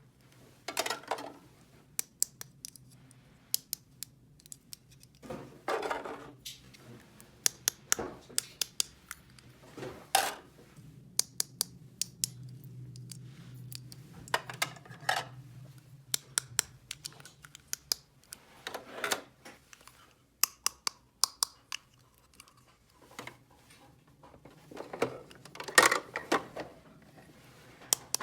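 Small hard plastic toy pieces being handled: scattered light clicks and taps, with brief rustles every few seconds.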